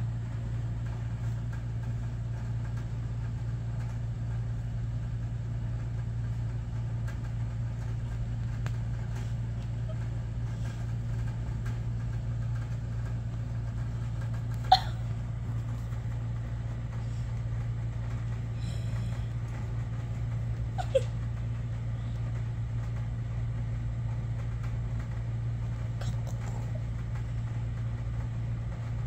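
A steady low hum, broken twice by a short sharp squeak that drops slightly in pitch: once about halfway through and again some six seconds later.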